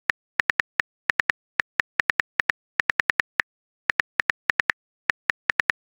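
Smartphone keyboard typing clicks: short, sharp ticks at an uneven pace, several a second, with a few brief pauses.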